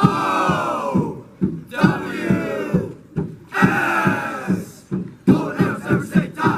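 A group of voices chanting or singing a cheer in unison in long phrases, over a steady knocking beat about twice a second.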